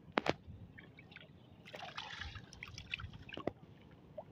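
Shallow water trickling and dripping around a gill net being handled, with scattered small splashes and a few sharp clicks, two of them near the start.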